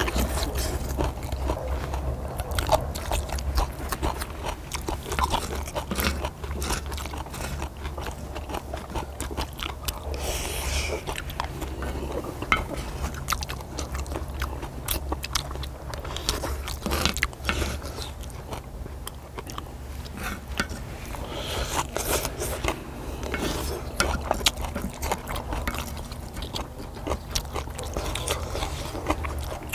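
People eating: chewing and biting, with many small clicks and scrapes of utensils on the cast-iron pot-lid grill, over a steady low hum.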